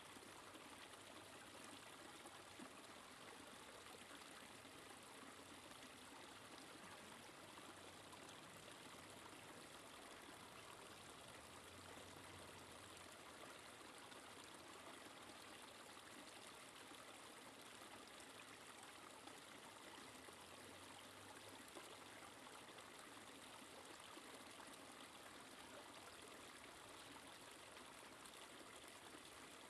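Small woodland creek trickling over a log step, faint and steady.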